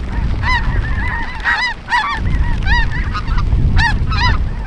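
Snow geese calling as a flock: many short, arched honks overlapping, several a second, over a steady low rumble.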